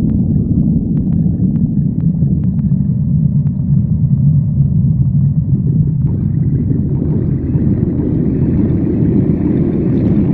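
Stomach growling: a continuous low rumble, loud and close, with a few faint clicks in the first three seconds. About six seconds in it turns brighter and reaches higher.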